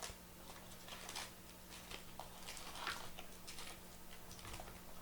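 Faint, irregular light clicks and taps of trading-card packs and a cardboard hobby box being handled, over a steady low hum.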